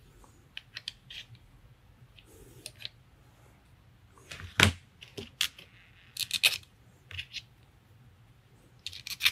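Small airgun barrel-clamp parts being handled and fitted by hand: scattered light clicks and taps, a sharper knock about four and a half seconds in, and a quick run of clicks around six seconds.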